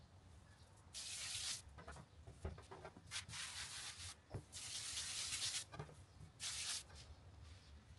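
A hand brushing flour across a smooth work surface in four rubbing strokes, each a soft hiss lasting half a second to a second.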